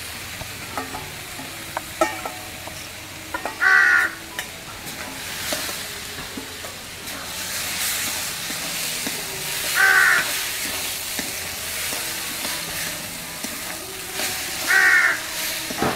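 A metal spatula stirring and scraping boiled tadka in an aluminium kadai, with a light sizzle and small clicks. A crow caws three times, about four, ten and fifteen seconds in; these short calls are the loudest sounds.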